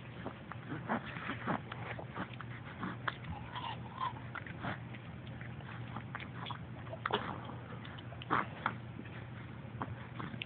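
Ice cream being licked and chewed: irregular wet smacks and clicks, a few of them louder, over a steady low hum.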